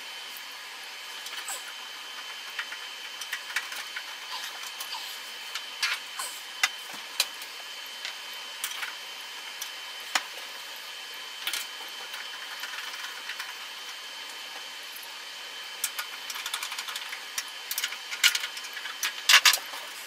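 Screws being fastened into the front cover of a Navien tankless water heater: scattered short clicks and small taps, coming thicker and faster near the end.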